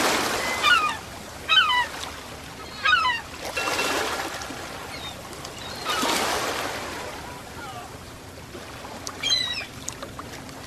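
Ocean waves washing onto the shore, swelling and fading. Over them a bird gives short, sharp calls, three in the first few seconds and again near the end.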